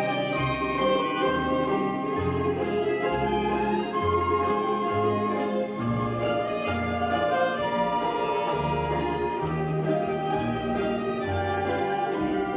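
Russian folk-instrument orchestra playing a tune over a steady walking bass, with evenly spaced bright percussion strokes keeping the beat.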